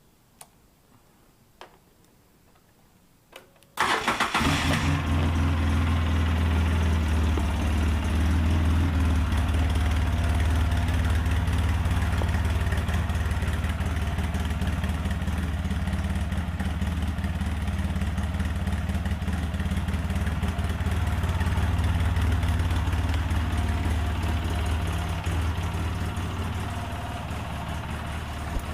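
A few light clicks, then about four seconds in an ATV engine starts abruptly and settles into a steady idle with a strong low hum.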